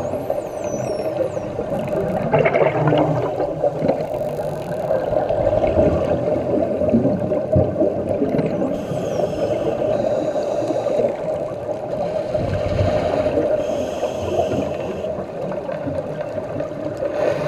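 Bottlenose dolphins heard underwater: a few thin, high whistles falling in pitch near the start and again about nine seconds in, and short buzzy bursts a few times. Under them runs a steady drone.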